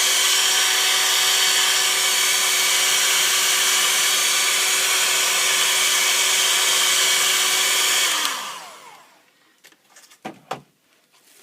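Hand-held hot-air blower running steadily, a loud rush of air over a constant motor hum, switched off about eight seconds in and winding down. It is heating the phone's LCD to soften the adhesive holding it in. A couple of light clicks follow near the end.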